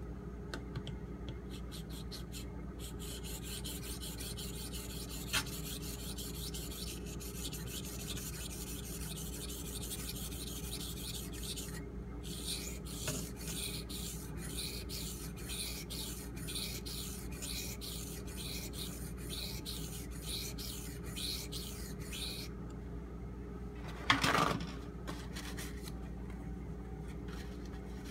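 Knife blade of AUS-8 steel stroked back and forth on a Shapton Pro 1000-grit whetstone, giving a rhythmic run of scraping strokes as the uneven bevels are worked level. The strokes pause briefly about halfway and stop a few seconds before the end, followed by one short, louder knock.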